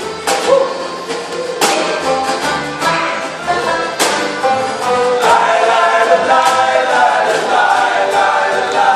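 Folk band playing live, with several voices singing together over sharply struck instruments; the music grows fuller and louder about five seconds in.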